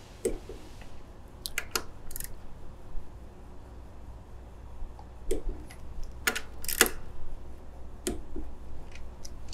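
Small torque wrench clicking as crankcase bolts are tightened: about nine separate sharp clicks, some in quick pairs.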